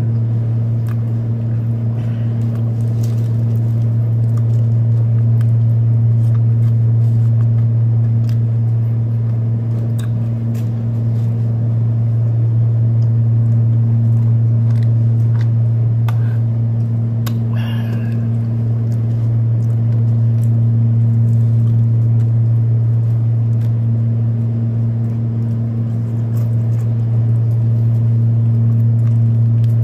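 Steady low hum of a window air conditioner running. Over it come faint clicks of chewing and a short sip through a straw about two-thirds of the way through.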